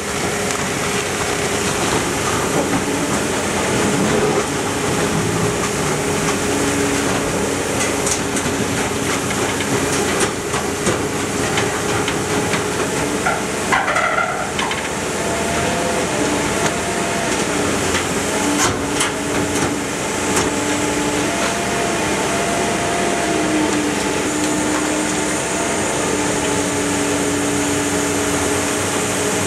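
Iron Pack car baler running, a steady machine noise with a hydraulic whine that holds and steps in pitch. Scattered metal clanks and knocks come through, a few of them about halfway through.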